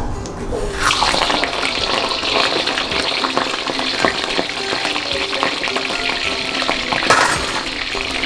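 A whole boiled chicken frying in a wok of hot oil. A sudden loud sizzle about a second in turns into steady, vigorous frying hiss and bubbling, which flares briefly louder near the end.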